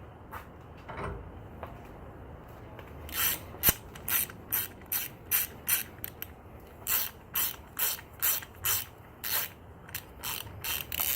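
Kobalt 90-tooth 1/2-inch drive ratchet being worked in short strokes: a run of quick ratcheting zips, about two a second, starting about three seconds in, with one sharper click among the first ones.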